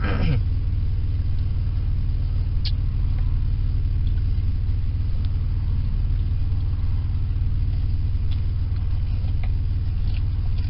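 Car engine idling, a steady low rumble heard from inside the cabin, with one faint click about two and a half seconds in.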